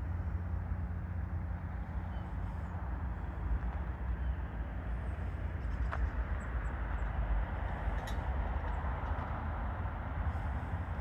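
Steady outdoor background noise: a low rumble and even hiss like distant traffic, with a few faint high chirps near the middle and a couple of brief clicks.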